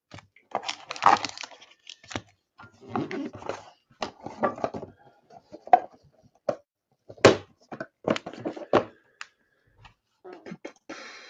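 Trading-card hobby box being opened and its wrapped packs handled: irregular crackling, tearing and rustling with sharp clicks, the loudest about seven seconds in.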